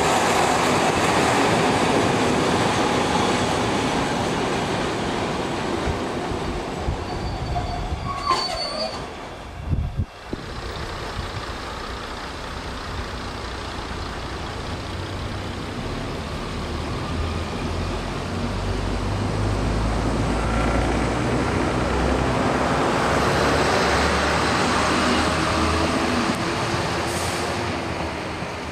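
Class 117 first-generation diesel multiple unit at a station, its wheels running on the rails and its underfloor diesel engines droning. After a break about ten seconds in, the unit pulls away with a low engine drone that swells and then fades near the end.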